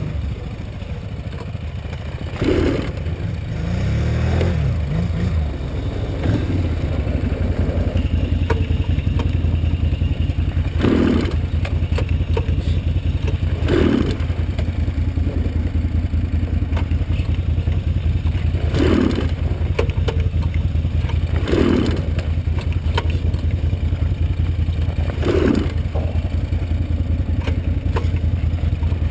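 Piped Polaris Ultra 680 three-cylinder two-stroke snowmobile engine, swapped into a Scrambler quad, running steadily at idle. It revs briefly about four seconds in, and short louder bursts come every few seconds.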